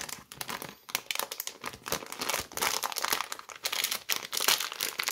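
Clear plastic bag holding a small chainsaw chain crinkling continuously with irregular crackles as fingers pull and work at it to open it.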